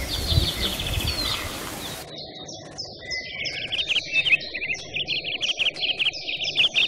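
Birds chirping and singing: a steady run of short falling whistles and quick trills, with a low rumbling noise under them for about the first two seconds.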